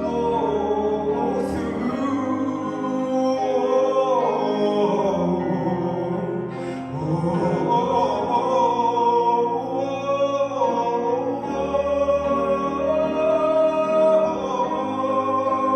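Live acoustic pop song: a singer holds a long sung note on the word 'through' and carries on with wordless, wavering vocal lines over steady acoustic accompaniment.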